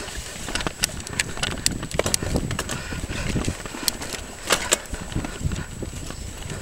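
Mountain bike rolling over a rough, stony track: tyres crunching on loose rock, with many sharp, irregular clacks and rattles from the bike over a low rumble.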